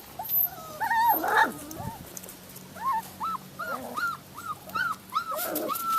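Labradoodle puppy whimpering: short, high, arching whines, a few near the start and then a steady run of about three a second through the second half, the sound of a young puppy crying in distress.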